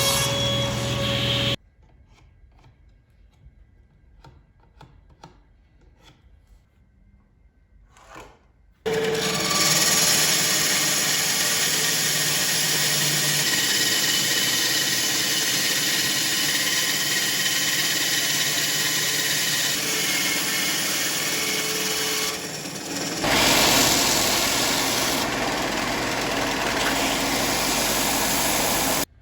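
Power saw cutting plywood: it runs, stops about a second and a half in, and after a few seconds of small clicks and handling it starts again and cuts steadily for about twenty seconds, easing briefly near the two-thirds mark and stopping just before the end.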